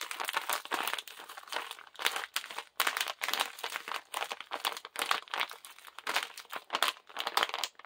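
Crispy French fried onions being crushed by hand inside a small plastic bag: the bag crinkles and the onions crunch in quick, irregular crackles as they are squeezed into crumbs.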